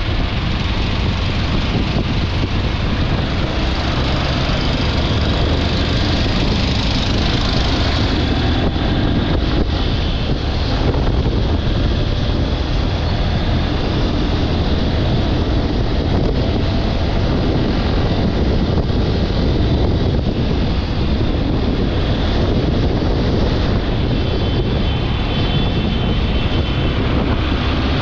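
Honda X-Blade 160's single-cylinder engine running steadily while the motorcycle is ridden along at road speed, heard from the rider's seat together with steady wind and road noise.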